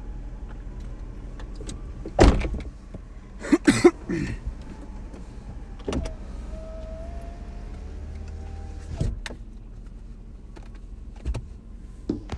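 A car's electric power window motor runs for about two and a half seconds and stops with a click. A few loud knocks and clunks come before it, over a low steady hum.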